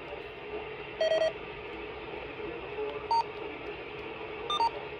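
Radio receiver hiss with scattered short electronic beeps during a pause in a weather radio broadcast: one longer, buzzier tone about a second in, then three brief blips in the second half.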